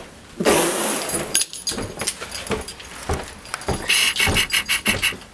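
Handling noise from a handheld camera: a burst of rustling about half a second in, then scattered knocks, and a rattling jangle near the end.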